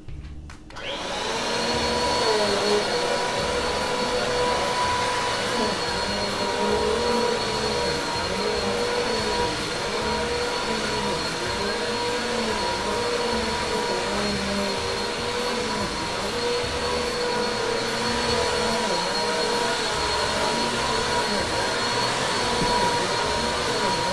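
Vacuum cleaner running steadily, a motor whine over a rush of air, switched on about a second in.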